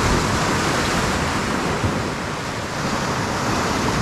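Sea swell surging and breaking over shoreline rocks: a steady rush of churning whitewater.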